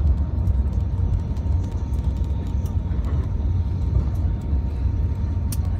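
Steady low rumble of an Airbus A350-900 in motion heard from inside the passenger cabin: the Rolls-Royce Trent XWB engines and airflow as a deep, even roar, with a few faint clicks.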